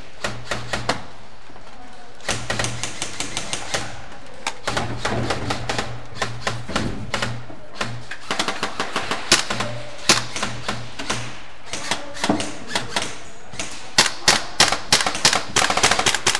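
Airsoft guns firing in volleys of sharp clicking shots, some in rapid bursts, with strikes rattling on plywood walls; the firing grows densest near the end.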